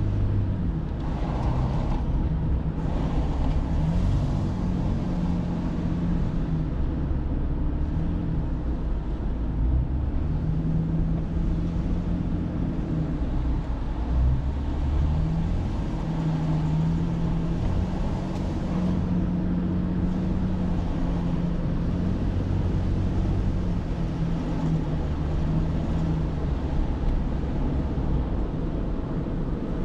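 Car driving, its engine and road noise a steady low rumble whose pitch shifts a little every few seconds.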